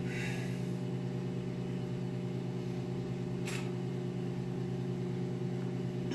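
Microwave oven running with a steady hum, with a brief tick about three and a half seconds in.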